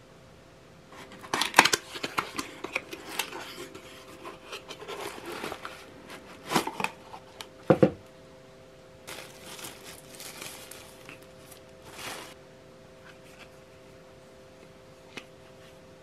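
Cardboard packaging box handled and opened by hand: flaps scraping and rustling, with a few sharp knocks, dying away after about twelve seconds. A faint steady hum runs underneath.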